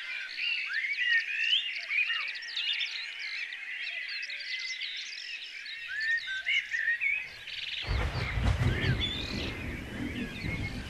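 A chorus of many small birds chirping and singing, with many short overlapping calls. About eight seconds in, a low rumbling noise joins underneath.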